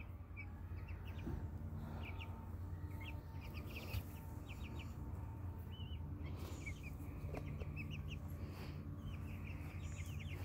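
Young chickens peeping softly: scattered short high cheeps, often in quick runs of two to four, over a steady low hum.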